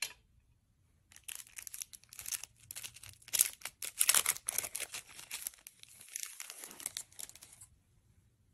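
Thin clear plastic wrapper crinkling and tearing as a folded lens-cleaning cloth is unwrapped by hand. It is a dense run of crackles from about a second in, lasting some six seconds and loudest in the middle. A single short tap comes right at the start.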